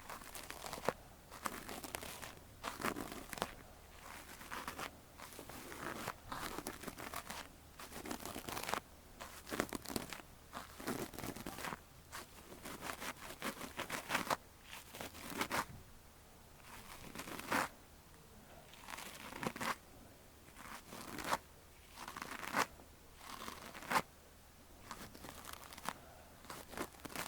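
Ear-cleaning tool scratching and rubbing inside an ear, heard close up, in repeated crackly scraping strokes about one every second or two.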